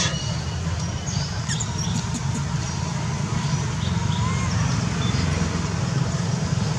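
Outdoor ambience: a steady low rumble, with faint short squeaking or chirping calls now and then.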